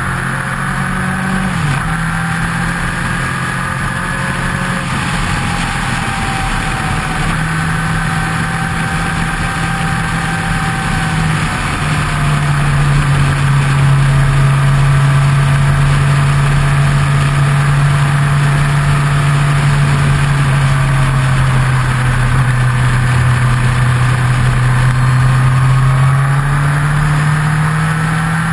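Kawasaki motorcycle engine running steadily at road speed, heard from a fairing-mounted camera with wind rush over it. About twelve seconds in, the engine note steps down in pitch and gets louder, then creeps slowly back up near the end.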